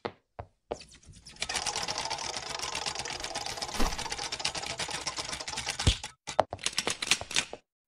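Cartoon sound effects for an animated logo: a couple of light taps, then a rapid, dense clicking rattle that lasts several seconds, with two heavier thumps partway through, stopping shortly before the end.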